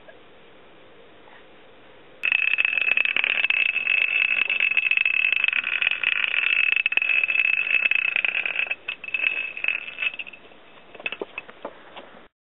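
Plastic toy spinning top set off with a sharp click about two seconds in, then spinning on concrete with a steady high whirring ring for about six seconds. After that it falters into scattered clicks and rattles.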